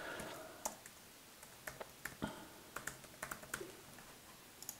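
Typing on a computer keyboard: faint, irregular keystrokes.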